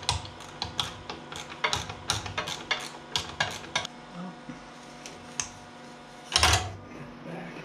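Gloved hands working at the top of a tractor's refillable lead-acid battery, making irregular light clicks and knocks, with one louder clatter a little over six seconds in.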